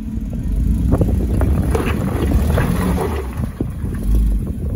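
Jeep Wrangler Rubicon crawling over rocks: the engine runs steadily beneath irregular knocks and crunches as the tyres climb and grind over loose rocks.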